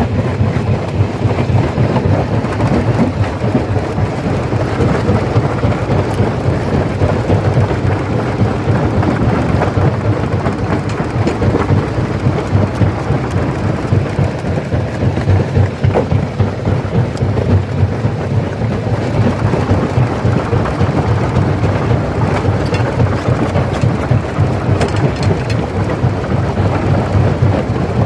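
Stone crusher crushing rock: a loud, continuous low rumble with dense crackling and grinding of stones breaking.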